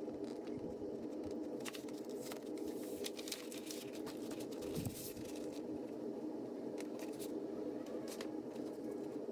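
Light clicks, taps and rustling from hand work on parts, over a steady low hum. The clicks come in two clusters, and there is a single duller knock about five seconds in.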